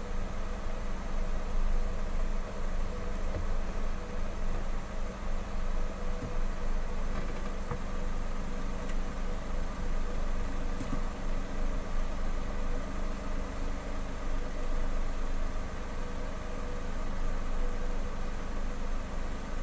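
Kawasaki W800's air-cooled parallel-twin engine idling steadily at a standstill.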